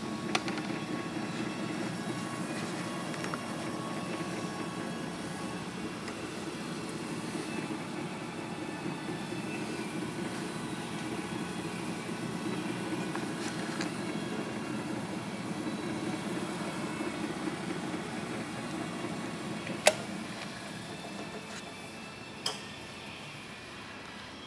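Palmgren PM7126 drill press motor and spindle running with a steady hum after start-up. About 20 seconds in a sharp click, the paddle switch going off, is followed by the hum fading as the spindle coasts down. Another single click comes a couple of seconds later.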